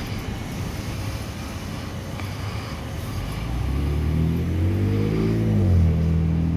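Road traffic noise, with a nearby motor vehicle's engine coming in about halfway as a low, steady hum that bends up and down in pitch for a moment and grows louder toward the end.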